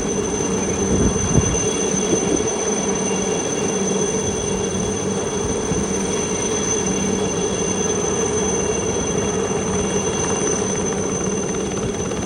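Helicopter running overhead: a steady mechanical din with a high, even turbine whine over it.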